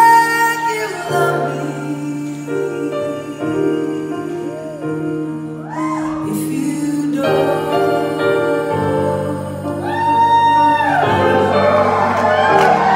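Live band playing the closing bars of a slow ballad: sustained keyboard chords under a woman's voice holding long, gliding notes. The crowd starts cheering near the end.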